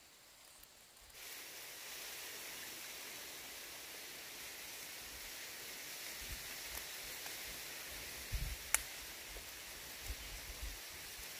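Steady outdoor hiss that sets in about a second in, with a few soft low thumps in the second half and one sharp click about nine seconds in.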